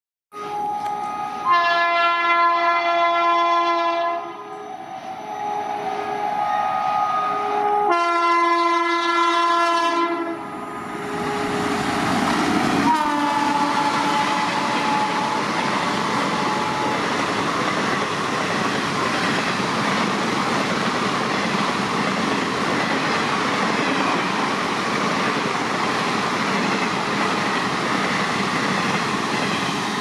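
Vande Bharat Express horn sounding in long chorded blasts, one after another, for about the first ten seconds. About 13 s in, a horn note drops in pitch as the train passes. The rushing, rolling noise of trains going by at high speed follows.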